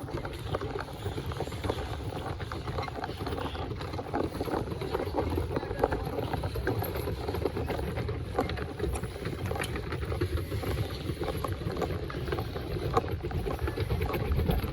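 Boat under way: a steady low rumble of engine and water noise.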